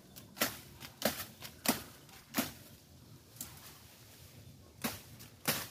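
A cheap machete hacking at green tree suckers: about six sharp chops, irregularly spaced, with a pause of about two seconds in the middle.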